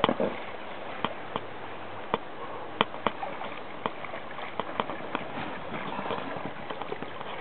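Irregular sharp ticks and small splashes of water in a small above-ground pool, over a steady hiss.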